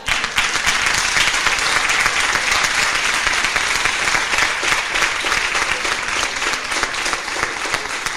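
Audience applauding, breaking out all at once and holding steady as a dense patter of many hands clapping.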